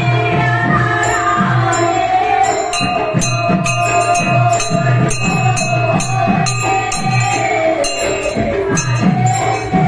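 Manipuri devotional music: a voice singing a wavering melody over a steady rhythm of drum strokes and bright, jingling strikes of small cymbals.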